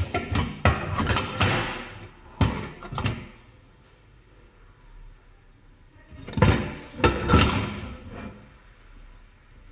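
Stainless steel potato ricer being handled: its pressing plate and handles clink and knock against the metal basket. The clatter comes in two bursts, over the first three seconds and again about six and a half seconds in.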